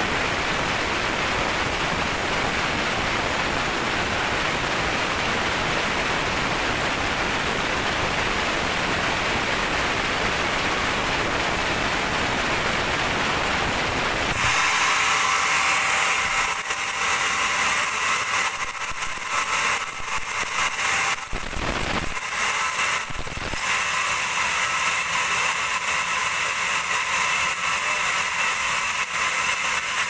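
Vertical band sawmill cutting through a teak log, a steady rushing hiss of the blade in the wood. About halfway in the sound changes abruptly to a thinner, higher whine, with a few short knocks a little later.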